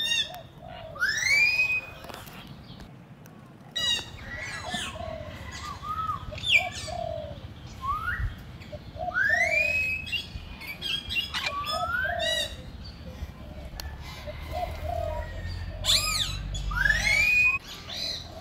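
Birds calling: a repeated whistled note that sweeps upward, every two to three seconds, with shorter, lower notes in between.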